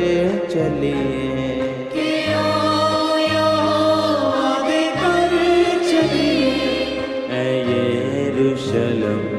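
Punjabi Christian worship song music between sung verses: a wordless, choir-like melody line wavers over a bass line that changes about once a second.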